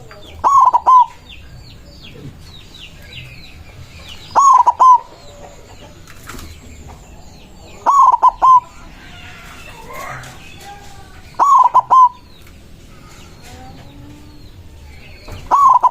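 White zebra dove (perkutut) cooing its song: five short phrases of three or four quick, clipped notes, one about every three and a half seconds. Faint chirps of other small birds run underneath.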